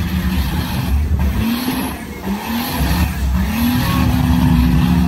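Off-road 4x4 race vehicle's engine revved in three quick rising blips, then held at a steady high pitch on the rev limiter, over a heavy low exhaust rumble.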